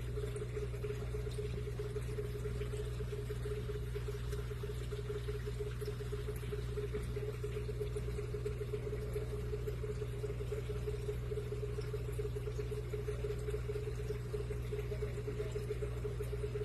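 Aquarium equipment running: a steady hum with a fluttering mid-pitched tone over a haze of bubbling water.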